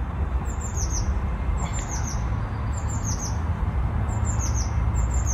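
Garden birds chirping in short repeated runs of high, falling notes, about one run a second, over a steady low rumble.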